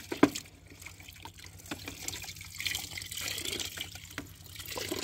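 Muddy water sloshing and dripping in a plastic tub as a plastic toy vehicle is dunked and rubbed clean, with small clicks of plastic and a sharp knock about a quarter second in.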